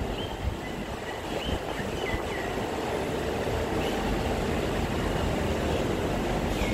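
Steady rumble of an MRT train on the elevated track, building slightly over the first few seconds and then holding level, with a few bird chirps in the first couple of seconds.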